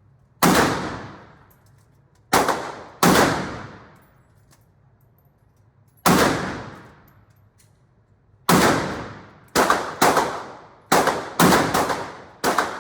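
Gunshots at a shooting range: about eleven shots at uneven spacing, some singly and several in quick succession near the end, each followed by a long echoing decay.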